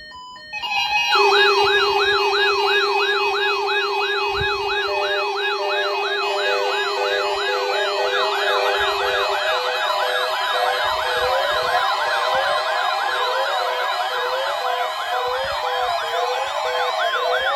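Several weather alert radios sounding their warning alarms together for a NOAA Weather Radio weekly test. The overlapping siren-like tones each glide up and down about three times a second over a steady low tone. They start about half a second in, and more warbling tones join around eight and ten seconds in.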